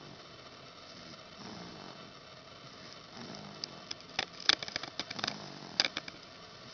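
Soft snoring, one breath about every two seconds, with a burst of sharp clicks and ticks in the middle that is louder than the snoring.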